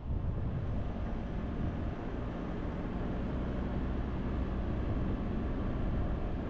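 Steady low rumble of a car on the move: tyre and road noise with engine drone.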